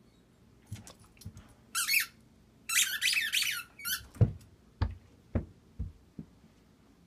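Shrill squeaks in three bursts, from a squeaky ball gripped in a Siberian Husky's mouth, then the dropped ball bouncing down carpeted stairs in about five thuds that come a little faster each time.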